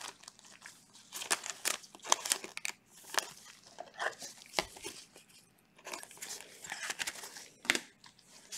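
Clear plastic card sleeve and rigid plastic card holder crinkling and clicking as nitrile-gloved hands slip a thick trading card into them; irregular short rustles and clicks.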